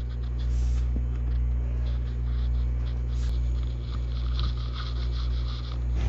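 Kitchen knife pressing down through a ball of risen yeast dough and against a silicone baking mat, making faint scraping and rubbing sounds, strongest about four to five seconds in. A steady low hum runs underneath.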